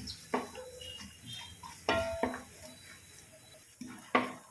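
A spoon stirring and knocking against the metal rim and sides of an uruli as coconut pieces, ginger and garlic fry in coconut oil: several separate ringing clinks with quieter scraping between them.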